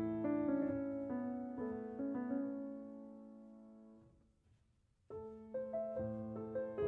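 Background piano music. The notes die away to near silence about four seconds in, and the music starts again a second later.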